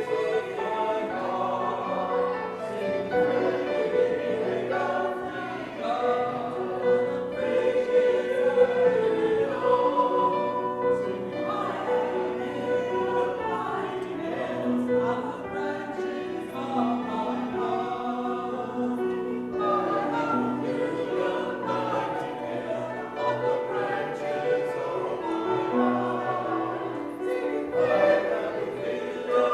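A choir singing in several parts, with held notes that change every second or so.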